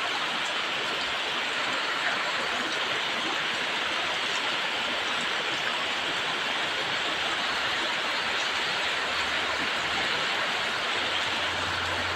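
Heavy tropical downpour with strong wind: a dense, steady hiss of rain.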